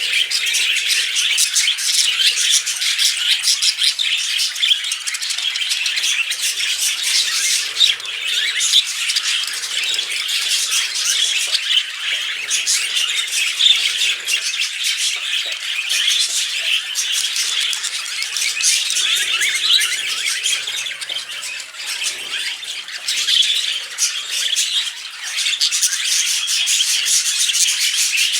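Male budgerigars warbling and chattering without pause, a dense stream of fast chirps, clicks and squawks, as they court each other.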